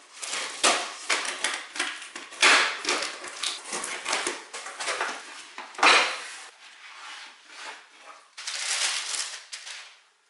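Cardboard boxes being opened and handled: a quick run of scrapes, knocks and rustles from flaps and box sides, with a longer rustle of tissue paper near the end as a running shoe is lifted out.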